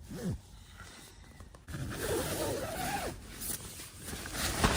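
A zipper being pulled open in one long rasp, rising and falling in pitch as the pull speeds and slows, after a brief tug near the start; a sharp knock near the end.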